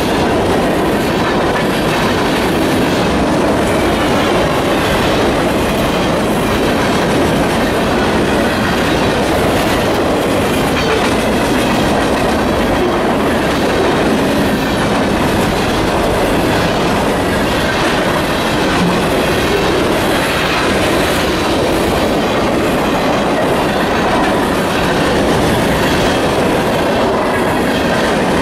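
Freight train cars (covered hoppers, boxcars, tank cars) rolling past: steady rumble and clatter of steel wheels on the rails.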